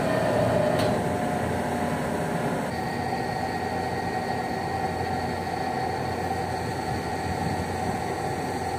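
Steady mechanical drone of a ship's machinery, with a low hum and a few fixed tones over a broad rush. It shifts slightly in tone about three seconds in.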